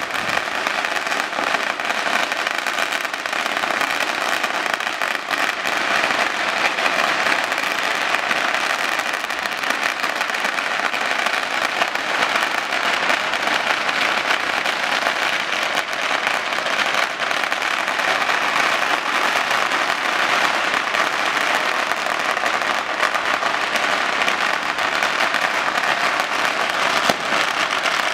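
Dense, continuous crackle of many fireworks and firecrackers going off together, countless small bangs overlapping with no pause.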